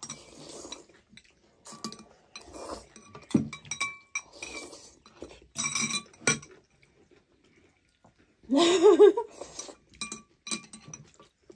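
Metal forks and spoons clinking against glass bowls of thukpa noodle soup during fast eating, with noodles being slurped between the clinks. The loudest sound is a short voiced sound about three-quarters of the way through.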